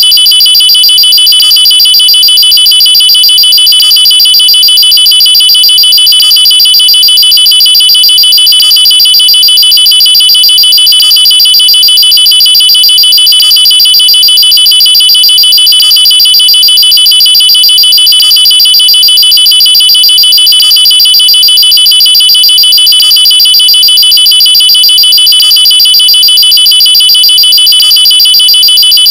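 Electronic alarm sounding continuously and loudly: a shrill, high-pitched tone trilling very rapidly at a steady pitch, with a pattern that repeats about every two and a half seconds.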